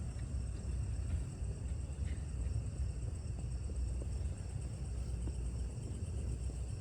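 Background noise: a steady low rumble with a faint, steady high-pitched whine and a few faint scattered ticks.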